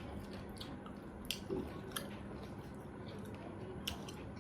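Close-miked eating: chewing with soft wet mouth smacks and scattered small clicks.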